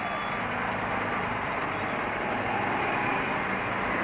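Steady road-traffic noise, an even rumble of passing vehicles.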